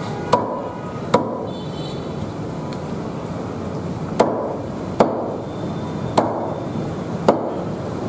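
Cleaver chopping through softshell turtle meat on a thick wooden chopping block: two sharp chops, a pause of about three seconds, then four more, over steady background noise.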